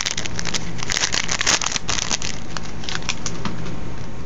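Foil wrapper of a Magic: The Gathering 2012 Core Set booster pack crinkling and crackling as the pack is opened, dense at first and thinning out after about two seconds, over a steady low hum.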